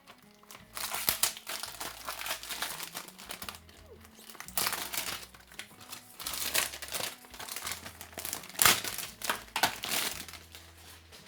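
Plastic packaging around a Blu-ray case crinkling as it is handled and pulled off, in irregular bursts, loudest near the end.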